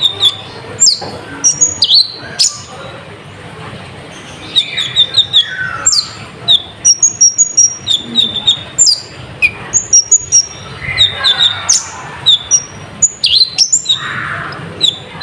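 Konin (kolibri ninja sunbird) singing a fast, busy song of short, sharp high chirps and trills in quick runs, with a pause about three seconds in. The song is full of mixed phrases ('full isian'), the kind used as a lure to excite other konin.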